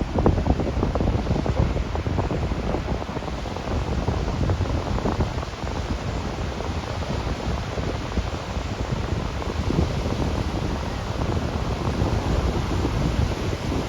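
Sea waves washing onto a sandy beach, mixed with wind buffeting the microphone, which makes a ragged low rumble.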